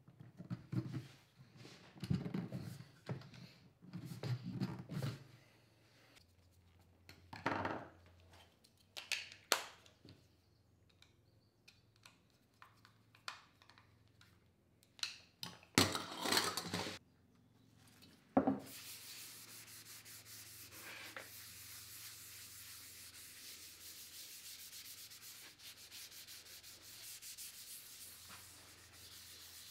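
Scattered knocks, taps and clicks of wood and tools being handled on a workbench. About two-thirds of the way in, a steady rubbing sound starts as a gloved hand wipes finish onto a spalted beech lamp base.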